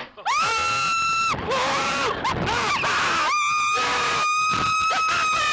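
Riders on a slingshot (reverse-bungee) ride screaming: a long high-pitched scream about a second long, then shorter cries, then a second long scream held steady from about three seconds in.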